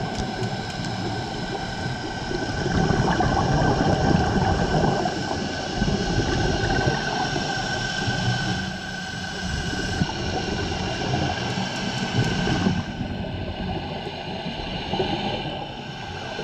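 Underwater sound through a dive camera's housing: a steady engine drone with a constant whine, typical of a boat motor carrying through the water, under a rumbling rush of noise that swells and fades, such as divers' exhaled bubbles.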